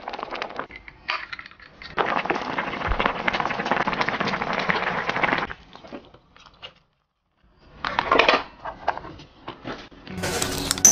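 Spicy hotpot broth boiling hard in an electric hot pot: a dense crackling bubbling that breaks off briefly near the start, then stops about five and a half seconds in. A short burst of the same crackling comes about eight seconds in, with a few clicks after it.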